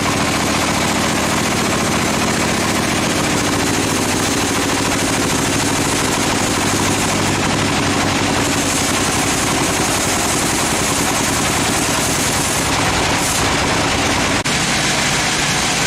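Sawmill machinery running steadily and loudly, an engine-driven drone with a fast, even rattle.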